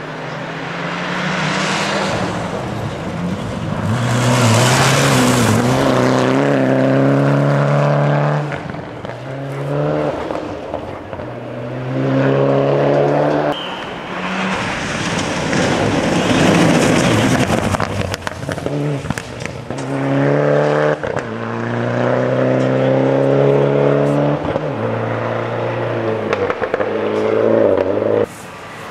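A Mitsubishi Lancer Evolution VI rally car's turbocharged four-cylinder engine at full throttle on gravel stages. It revs up through the gears, with breaks at each shift, over the hiss of tyres and flung gravel. It goes by several times, cut together.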